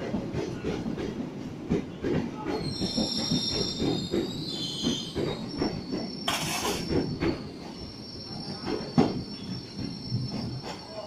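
Freight wagons of a parcel train rolling past, their wheels clattering over the rail joints in a steady run of knocks. A high wheel squeal sets in about two and a half seconds in and holds, with one sharp, loud knock near the end as the last wagon goes by.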